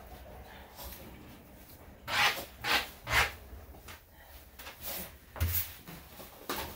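Hands squeezing water out of a wet Maltese's coat in a bathtub. Three strong wet strokes come about half a second apart a couple of seconds in, with a few fainter ones later.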